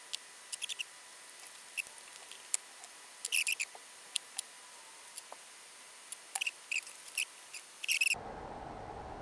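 Scattered small, sharp clicks and light ticks from gloved hands handling injector parts in the engine bay, some in quick clusters near the middle and again toward the end.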